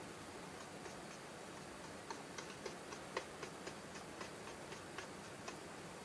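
Faint light clicks and taps, about three or four a second and clustered in the middle, from a plastic model box car shell and a paintbrush being handled.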